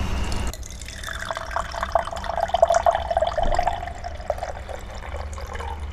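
A drink being poured into a glass: trickling liquid with a steady ringing tone, loudest around the middle.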